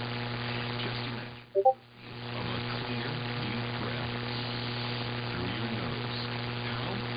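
Radio reception hum and static, steady apart from a brief dropout about a second and a half in. Two quick beeps sound inside that gap.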